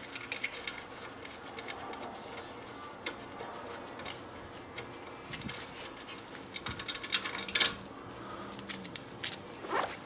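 Scattered metallic clicks and clinks of sockets and hand tools being handled at a brake caliper, with a denser run of clinks about seven and a half seconds in.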